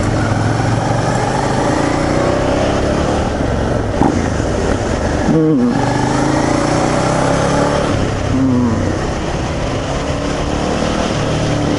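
Suzuki SV650's V-twin engine running under throttle while the bike is ridden through bends, its pitch slowly rising and falling, with a brief dip about five and a half seconds in. Wind and road noise run underneath.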